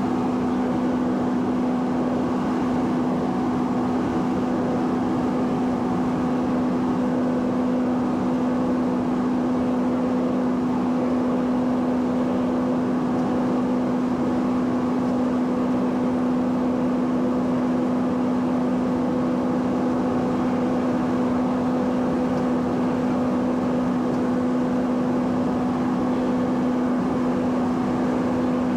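Cessna 208 Caravan's single Pratt & Whitney PT6A turboprop engine and propeller running steadily in flight, heard inside the cockpit. It is a constant drone: a strong low hum with a fainter higher tone above it, over a steady rush of engine and air noise.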